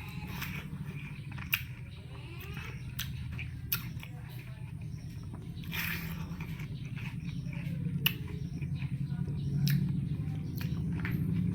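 A person chewing mouthfuls of watermelon, with a few sharp mouth clicks over a steady low hum.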